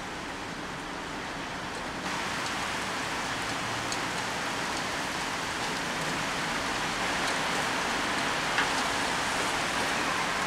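Heavy rain shower pouring down, a steady hiss that gets louder about two seconds in, with one sharp tap near the end. No thunder with it.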